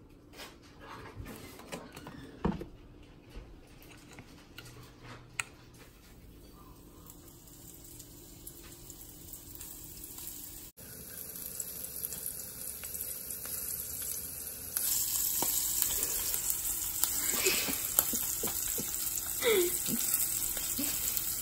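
Faint clicks and knocks while cooking oil goes into a stainless frying pan. About eleven seconds in, flour-dredged octopus pieces start sizzling in hot oil. The sizzle grows louder a few seconds later, with a few pops.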